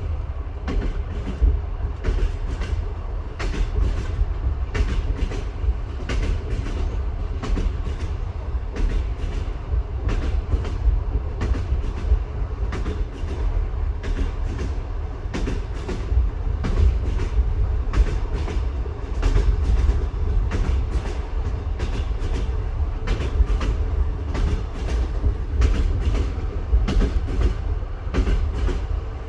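Train wheels knocking over rail joints, a constant, irregular clickety-clack over a steady low rumble.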